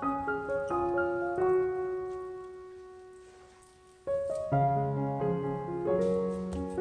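Background piano music: a few notes ring out and fade away, then a fuller passage with deeper bass notes starts about four seconds in.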